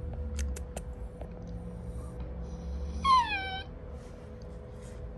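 Black British Shorthair kitten giving one short meow that falls in pitch, about three seconds in, after a few light clicks.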